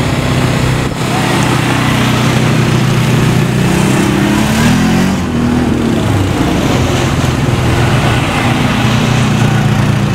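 Several ATV engines running as a line of four-wheelers drives past one after another. About halfway through, one engine note falls in pitch as it goes by.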